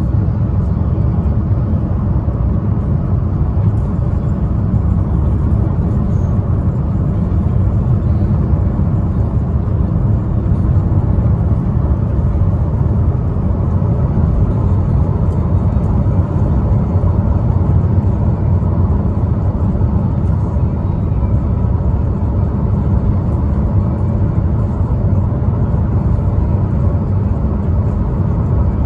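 2015 Chevrolet Cruze being driven at steady speed: a constant low rumble of road and engine noise, with no sudden changes.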